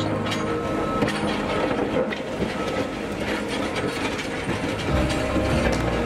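JCB 3CX Pro backhoe loader driving over rough quarry ground: its diesel engine runs under a dense, steady rattle of clicks and clanks from the machine and the loose rock beneath its tyres.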